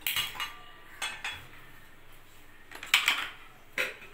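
Four sharp clinks and knocks of a wooden spatula against a metal pan of heating milk, the loudest about three seconds in.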